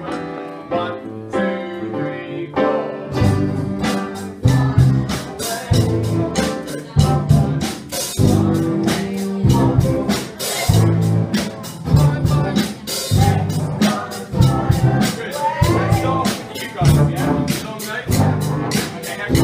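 Live student band music: voices singing over piano, then from about three seconds in a full band with drum kit and keyboards playing to a steady beat.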